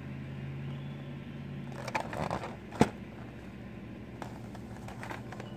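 Handling noise from a cardboard candy box with a plastic window held in the hands: scattered crackles and scrapes, with one sharp click a little under three seconds in. A low steady hum stops about two seconds in.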